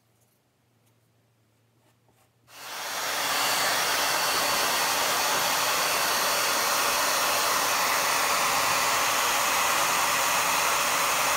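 A few faint clicks, then a hair dryer switched on about two and a half seconds in, running with a steady, even rush of air. It is blowing on a fresh patch of water putty to speed up its drying.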